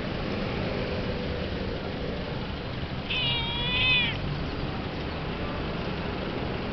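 Kitten meowing once about three seconds in, a single call lasting about a second whose pitch drops at the end, over steady background noise.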